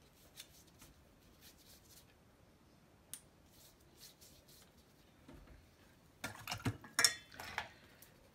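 A paintbrush dabbing and scratching faintly on paper, then a brief flurry of sharp clicks and clinks about six seconds in as the brush is handled among the paint pots and palette.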